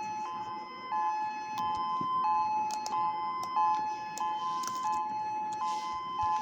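Federal Signal EOWS 612 electronic outdoor warning siren sounding its Hi-Lo test tone, switching back and forth between a higher and a lower steady pitch about every two-thirds of a second.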